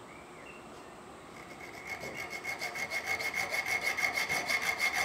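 Hand file scraping across the end of a flat steel bar held in a vise, in rapid short strokes that start about a second and a half in and grow louder, with a steady high ring from the metal.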